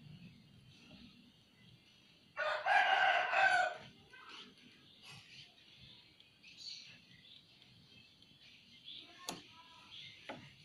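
A rooster crowing once, about two seconds in, one call lasting about a second and a half. Two short sharp clicks follow near the end.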